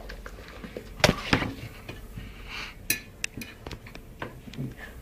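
Light clinks and knocks of dishes, about eight at irregular spacing, over a faint steady hum.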